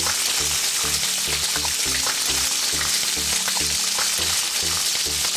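Sizzling, frying-pan sound effect, a steady loud hiss like food in a hot wok, laid over a music track with a steady bass beat.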